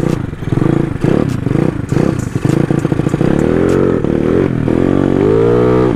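Race-spec Yamaha Mio scooter's carburetted engine running choppy and uneven at low revs, then revving up in two rising sweeps with a brief drop in between near the end.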